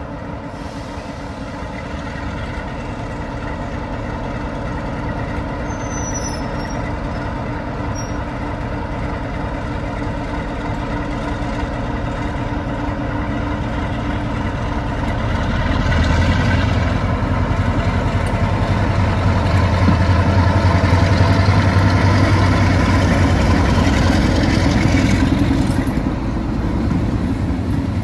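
Class 47 diesel locomotive's Sulzer V12 engine working hard as it pulls a train of Mark 3 coaches away. The engine note grows steadily louder, is loudest from about halfway through as the locomotive passes close, then eases near the end as the coaches roll by.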